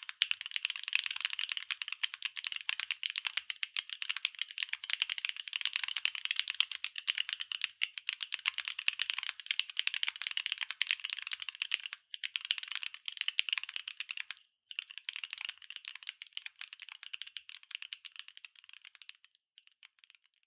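Continuous fast typing on a NEO70 mechanical keyboard with BSUN Tomcat linear switches, aluminium plate and PBT double-shot keycaps: a dense stream of keystroke clacks, with two brief pauses past the middle, thinning out near the end.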